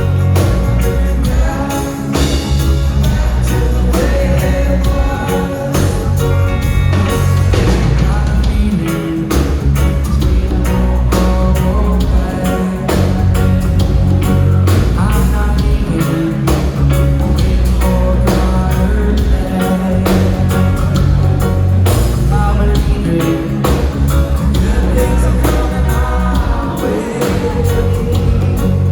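A reggae band playing live, with a heavy bass line, steady drums, guitar and singing.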